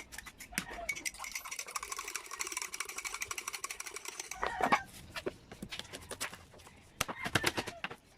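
Rapid, even tapping for about three and a half seconds, like a knife mincing on a cutting board, then a few separate sharp knocks near the end. A chicken clucks briefly in between.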